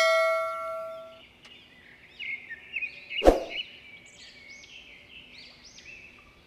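A bell-like chime from a subscribe animation's notification-bell sound effect rings out and fades over the first second. Then birds chirp repeatedly, with one sharp knock about three seconds in.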